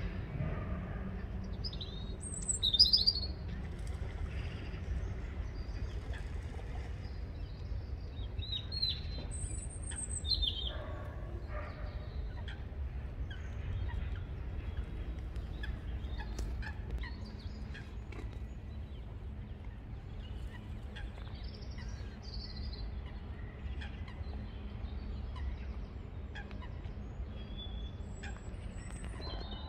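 Birds calling and chirping on and off, loudest about three seconds in and again around ten seconds, over a steady low rumble.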